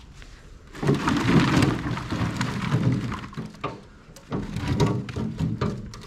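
A wheelbarrow load of coconuts in their husks tipped onto a pile, tumbling and knocking against each other in a rumbling rush. It comes in two pours, the first about a second in and a second just after four seconds.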